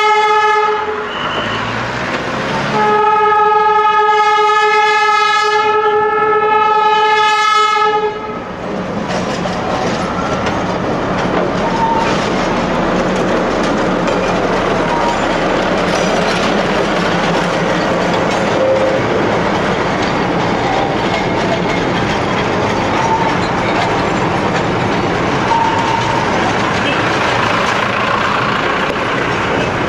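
Darjeeling Himalayan Railway NDM6 narrow-gauge diesel locomotive sounding its horn: a blast that breaks off about a second in, then a second long blast from about three to eight seconds in. After that, the locomotive's engine runs steadily as the train passes close by.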